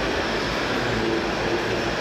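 Steady, even din of a busy model-fair hall, with RC model machines running on the display course.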